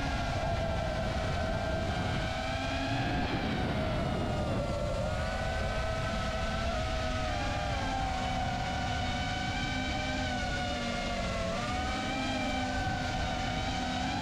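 Emax Babyhawk II HD 3.5-inch FPV quadcopter's brushless motors and propellers whining steadily in flight. The pitch dips and rises a little as the throttle changes.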